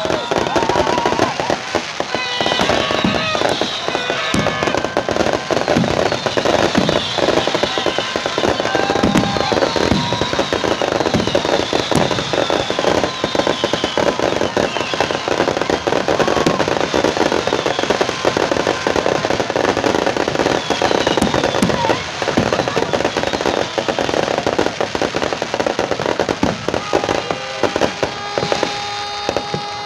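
New Year fireworks display: continuous dense crackling and popping bursts, with many whistles sliding down in pitch.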